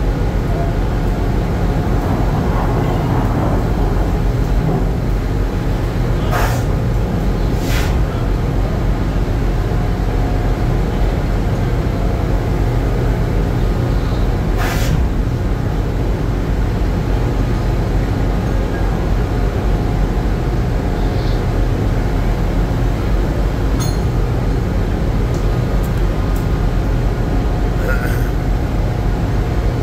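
Steady, loud low drone of a processor trawler's machinery, unbroken throughout. Three short sharp clanks stand out about six, eight and fifteen seconds in.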